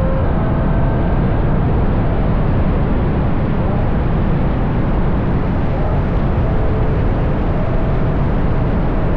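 Ferrari GTC4Lusso driving at a steady cruise: loud wind rush over the car-mounted microphone and tyre roar, with the V12 engine's note faint beneath.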